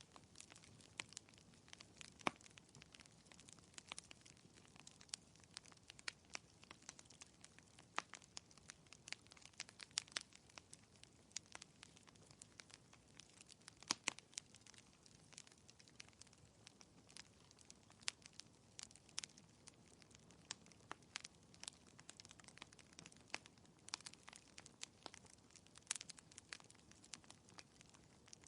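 Wood fire crackling in a fireplace: irregular sharp pops and snaps over a soft low hiss.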